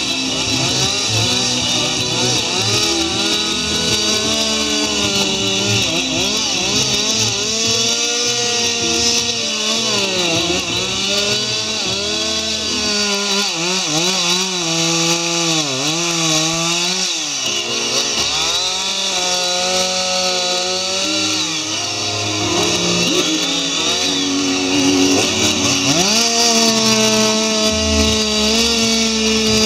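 Two-stroke chainsaw carving a wooden log, its engine pitch rising and falling over and over as it bites into the wood and eases off.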